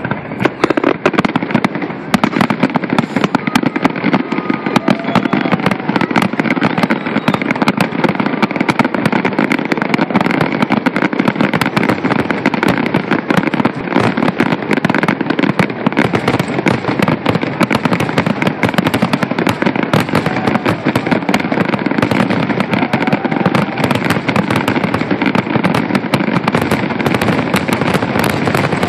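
Aerial fireworks in a continuous barrage: shell bursts and crackle overlap with no gap between them.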